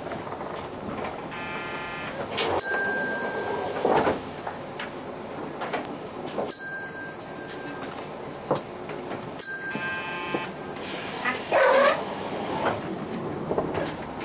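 Interior running noise of an Isuzu Erga PJ-LV234L1 diesel city bus under way, with three loud, sharp clacks about three to four seconds apart, each followed by a brief ringing tone.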